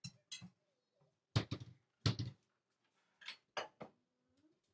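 A series of short knocks and thumps, seven or so, with two louder, heavier thumps about a second and two seconds in and quiet gaps between them.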